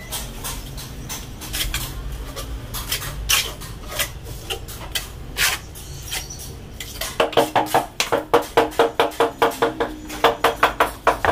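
Steel trowel scraping and slapping cement mortar onto the back of a stone-look wall tile. About seven seconds in comes a quick, even run of sharp taps as the tile is knocked into its mortar bed on the wall.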